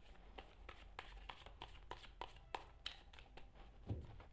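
A deck of oracle cards being shuffled by hand: soft, quick clicks of cards slipping and slapping together, about three a second, then a low thump near the end.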